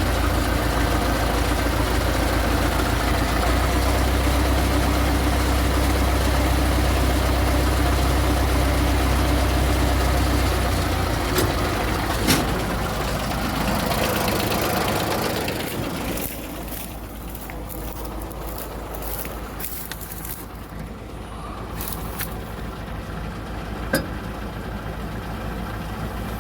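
MTZ-50 tractor's four-cylinder diesel running steadily while its compressor pumps up air pressure for the trailer brakes. About eleven seconds in the deep engine note changes, and around sixteen seconds the sound drops to quieter running, with a couple of sharp clicks.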